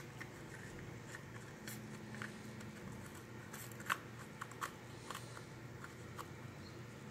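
Light, irregular clicks and taps of a Bosch distributor being reassembled by hand, its plastic protector and rotor pushed back into place. The sharpest clicks come about four and five seconds in.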